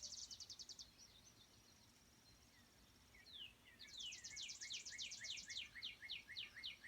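A songbird singing two rapid trills of high, repeated notes: the first ends about a second in, and after a pause a second trill of quick downward-sliding notes starts at about three and a half seconds and slows toward the end.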